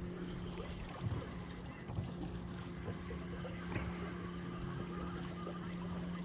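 A steady low hum from a small motor, with a few light knocks over a faint background hiss.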